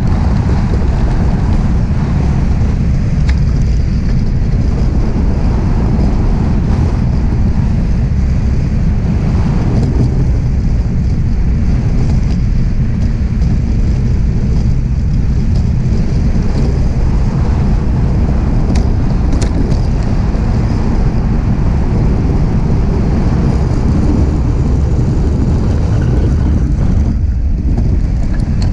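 DN iceboat sailing fast over ice: a loud, steady low rumble from its steel runners running on the ice, mixed with wind buffeting the microphone.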